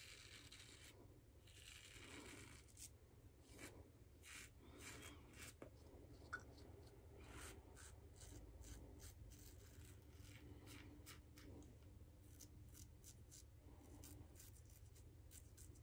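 Faint scratching of a brass double-edge safety razor cutting stubble through shaving lather, many short strokes in quick, irregular succession, with one sharper click about six seconds in.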